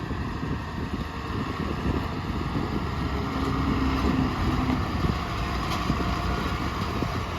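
Heavy diesel engine of earth-moving machinery running steadily, a low rumble with a short steady hum rising out of it about three seconds in.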